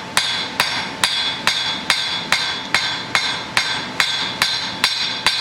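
Cross-peen hammer striking hot iron on an anvil in a steady rhythm of about two and a half ringing blows a second. The blows are drawing the socket of a bodkin arrowhead out thin and wide, like a fan.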